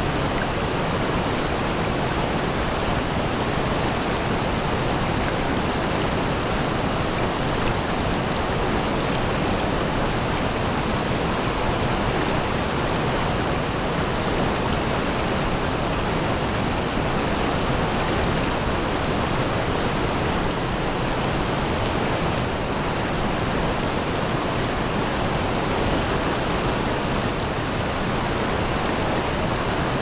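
Mountain stream flowing steadily over rocks and pebbles into a shallow pool, an even rush of water from the riffle between the boulders.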